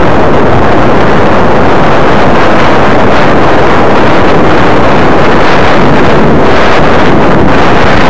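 Loud rush of wind buffeting the microphone over the rumble of a wooden roller coaster train running along its track.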